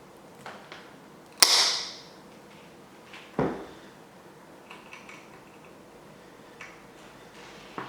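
A single sharp snap of cutters cutting through, with a brief bright hiss after it, then a duller knock about two seconds later and a few light handling clicks.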